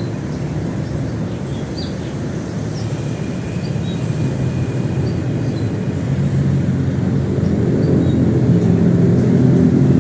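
An engine running steadily with a low hum that grows louder in the second half, as if drawing nearer.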